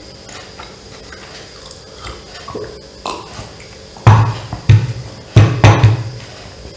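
A man's short, throaty vocal bursts, four in quick succession about four to six seconds in, right after a drink of cola. Before them come only faint small mouth and table clicks.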